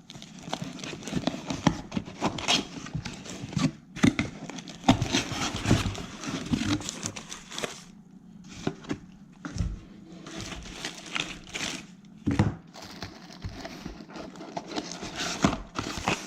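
Paper and plastic packaging being handled: irregular rustling, crinkling and clicks, with a few dull knocks, as the box of parts is unpacked.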